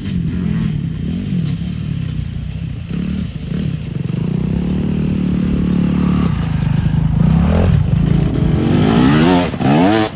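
KTM SX 250 two-stroke motocross bike's single-cylinder engine under way, its revs rising and falling through the gears. It holds fairly steady midway, then revs up hard several times near the end, at its loudest.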